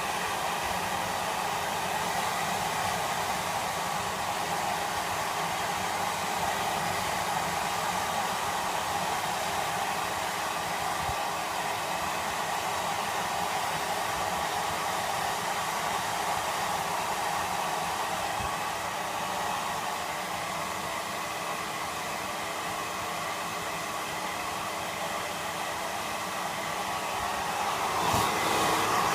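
Hair dryer running steadily, blowing air onto a wet Pomeranian's coat, a little louder near the end.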